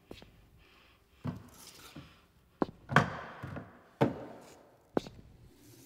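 Slow footsteps of boots on a hard floor, about one step a second, each a dull thud.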